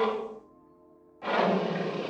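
An animal call heard twice: a loud, rough call fading out about half a second in, then another starting a little after a second in. A faint steady musical tone fills the gap between them.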